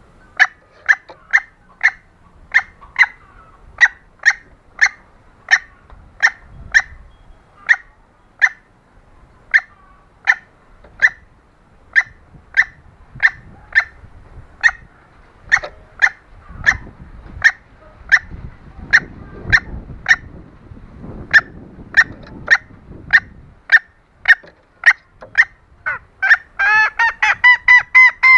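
Female green junglefowl calling: short, sharp notes repeated about three every two seconds, then near the end a faster run of louder notes, about six a second. It is a female's mating call used to lure males.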